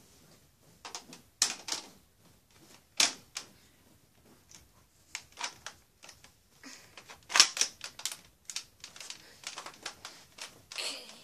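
Sharp plastic clacks and snaps of a toy Nerf blaster being handled and worked, with three louder knocks standing out among lighter rattling clicks.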